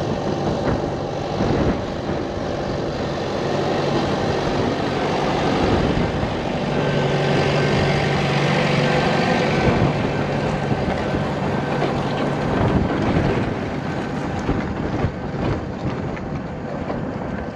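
Tractor engine running steadily under load while pulling a plough, with a continuous mechanical rumble and a slight rise and fall in pitch around the middle.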